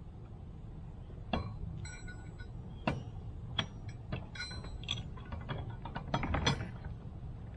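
Irregular metallic clicks, knocks and clinks of steel latch hardware being handled and fitted. A few of the strikes ring briefly.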